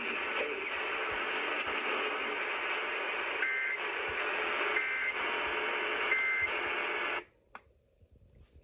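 Radio static, with three short two-tone digital bursts about a second apart: Emergency Alert System (SAME) data tones. The radio audio cuts off suddenly near the end.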